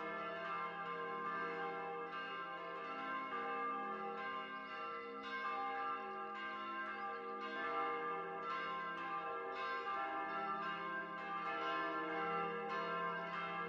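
Church bells ringing continuously for Easter, announcing the Resurrection, with fresh strokes about once a second over long overlapping ringing tones.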